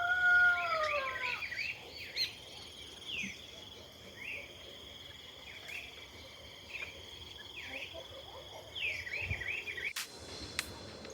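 A rooster's crow trails off, falling in pitch, in the first second or so; after it, small birds chirp in short repeated calls over a steady high-pitched whine.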